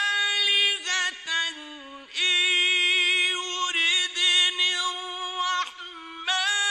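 A solo male voice in melodic Quran recitation (tajweed), holding long notes with rising and falling ornaments. The voice pauses briefly about two seconds in and again near the end before going on.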